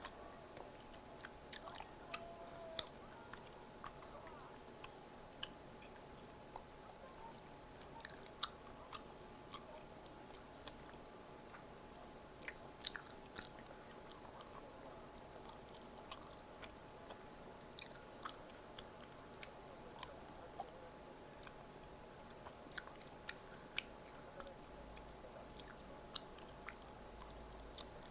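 A person chewing and biting food close to the microphone, with many short, sharp crunchy clicks at an irregular pace and a few brief pauses.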